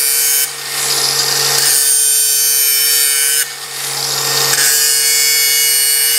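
DeWalt cordless angle grinder with a 1/8-inch grinding disc, grinding a flat land onto the beveled edge of a steel plate: a steady motor hum under a high, screeching grind. The grind eases twice, about half a second and three and a half seconds in, as the disc briefly lifts off the steel, then bites again.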